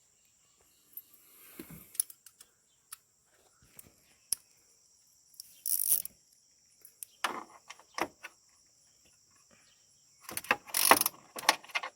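Metal hand tools clinking and rattling as they are handled, most likely a ratchet and socket, in scattered sharp clicks and short clatters that grow busier about ten seconds in.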